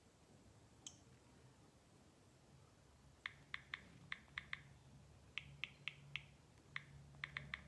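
Near silence with a faint low hum, then from about three seconds in, runs of short sharp clicks, about fourteen in all, several a second.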